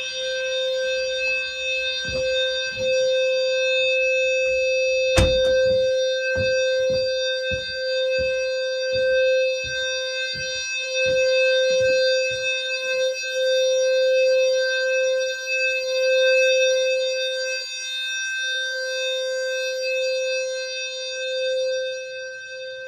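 Electronic fire alarm horn sounding a steady, continuous buzzy tone. A scatter of short low thumps runs under it, with one sharp, loud crack about five seconds in.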